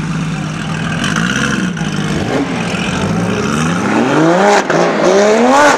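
A car engine running at a steady low pitch, then revving up from about three and a half seconds in, pitch climbing, with a short break and a second climb near the end.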